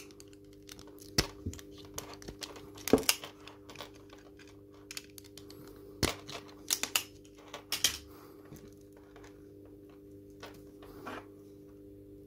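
Automatic wire stripper snapping shut and springing open as it strips the insulation off the ends of short wires: a handful of sharp clacks spread over several seconds, over a steady low hum.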